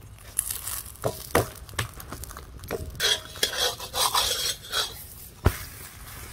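Flat metal spatula scraping and knocking on an iron tava as a millet flatbread is loosened and turned: a few light clicks, then a stretch of scraping, then one sharp knock near the end.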